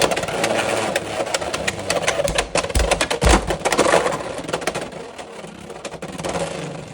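Beyblade X spinning tops (Dran Buster against Hell's Hammer) spinning and colliding in a plastic stadium: dense rattling clicks with a few heavy hits between about two and a half and three and a half seconds in, then the clashing grows quieter toward the end.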